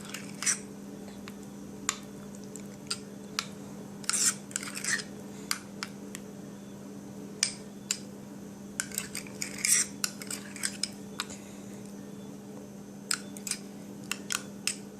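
A utensil stirring a mayonnaise, mustard and vinegar sauce in a bowl, clinking and scraping against the bowl in irregular strokes.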